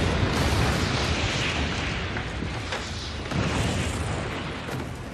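Dramatised explosion of a black-powder magazine: one long rumbling blast that slowly dies away, with a couple of sharp cracks near the middle.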